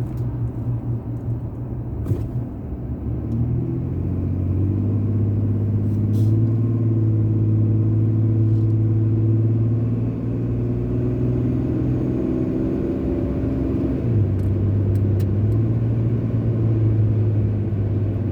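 Car driving on the road: a steady low engine hum over tyre and road noise, the engine note strengthening a few seconds in as it picks up speed and easing briefly about two-thirds of the way through.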